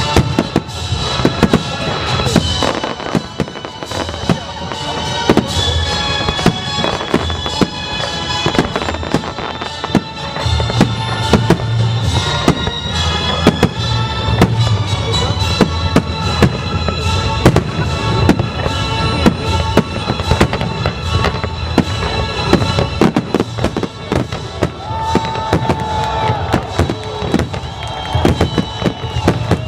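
Fireworks bursting in rapid, irregular succession over music played for a pyromusical display.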